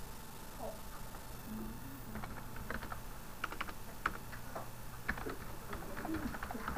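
Light, irregular clicking of typing on a computer keyboard, over a low steady electrical hum.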